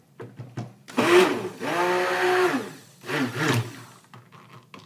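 Hand-held stick blender pulsed three times in a cup of coloured soap batter, its motor whirring up and winding down with each burst as the colour is blended in.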